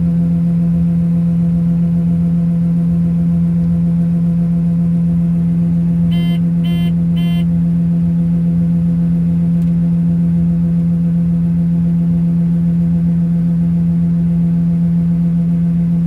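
John Deere 9560 STS combine running steadily with its unloading auger pouring corn, heard as a constant low drone inside the cab. Three short electronic beeps from the cab alert sound about six to seven and a half seconds in.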